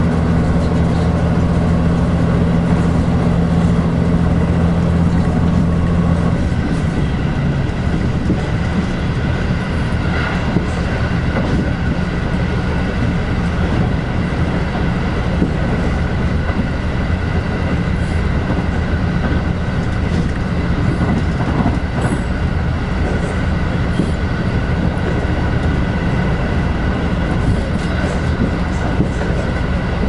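Inside a limited express train: wheels on rails and steady running noise. A low hum drops out about six and a half seconds in, and the rumble carries on.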